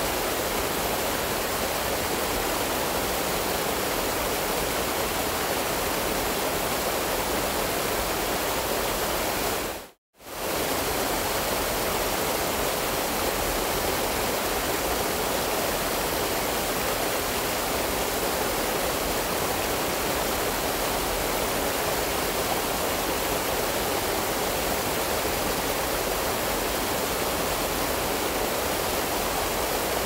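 Waterfall: a steady, even rush of water pouring over rock. About ten seconds in, the sound cuts out abruptly for a split second and then comes straight back.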